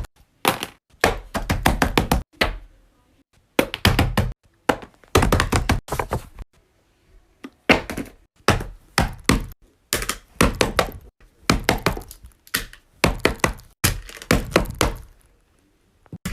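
Fidget toy handled in quick bursts of sharp taps and thunks, a rapid run of strokes in each burst, with short pauses between bursts.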